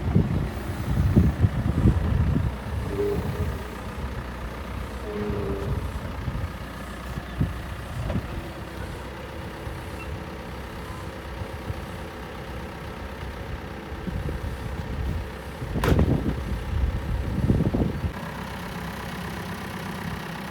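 Engine of heavy earth-moving machinery running steadily, with louder rumbling surges near the start and twice about three-quarters of the way through, and a sharp knock with the first of those later surges.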